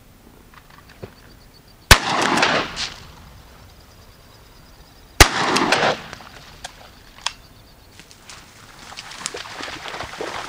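Two shotgun shots about three seconds apart, each followed by a short rolling echo. Near the end, splashing and rustling build as a retriever dog goes into the water.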